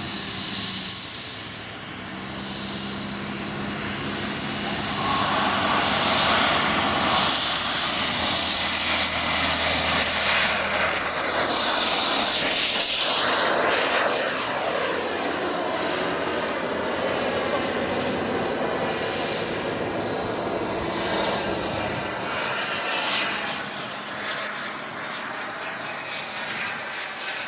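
Engine of a radio-controlled Feibao Mirage model jet with a thin high whine that climbs in pitch over the first several seconds as it spools up for takeoff. It then holds steady over a rushing sound as the jet flies off and grows fainter near the end.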